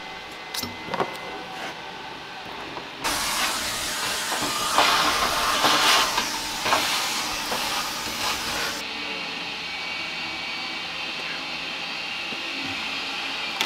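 A loud, even hiss that starts abruptly about three seconds in and cuts off abruptly about nine seconds in, with a few knocks in it, then a quieter steady high hiss.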